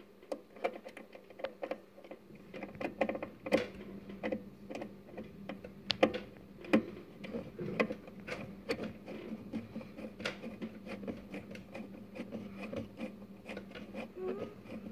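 Hands working inside a guitar amplifier's chassis close to the microphone: irregular clicks, taps and rustles of fingers on metal and parts, over a low steady hum.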